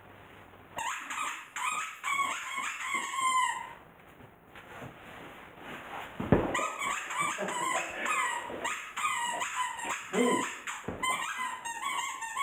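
German Shepherd whining over and over in high, wavering cries, an excited greeting, with a quieter gap near the middle. One sharp thump about six seconds in.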